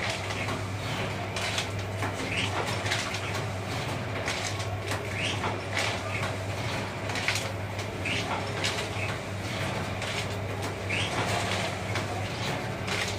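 Full-automatic double-die paper plate making machine running, a steady motor hum under repeated clicks, knocks and rattles as its two dies press foil paper into plates.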